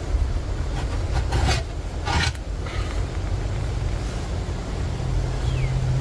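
Steel pry bar scraping and rubbing against a tractor tire's rubber bead and steel rim, with two strong scrapes about one and a half and two seconds in, as the bead is levered off the rim. A steady low hum runs underneath, and a few short falling bird chirps come near the end.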